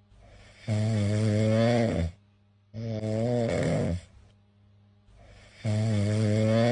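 Domestic cat snoring in its sleep: three long buzzing snores, each a little over a second, with short quiet pauses between breaths.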